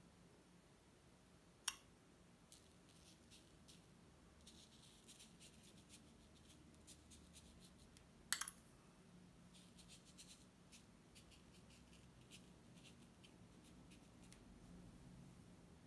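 Faint scraping and ticking of a metal spoon spreading coloured sand over a sticky sand-art board. A sharp clink of ceramic sand bowls about two seconds in, and a louder quick double clink about halfway through.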